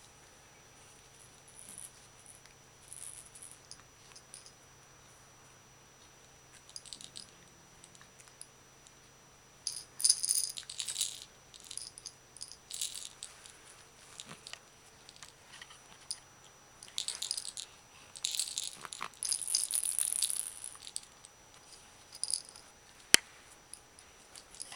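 Hanging toys on a baby play gym rattling and jingling in irregular bursts as the baby bats and grabs at them, with a sharp click near the end.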